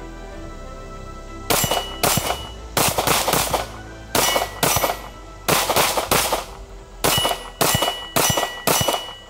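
Semi-automatic pistol firing about a dozen shots, starting about a second and a half in, at roughly two shots a second with brief pauses.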